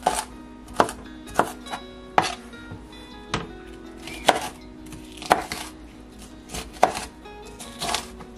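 A knife chopping on a cutting board: about ten sharp, unevenly spaced strikes, roughly one a second, over soft background music.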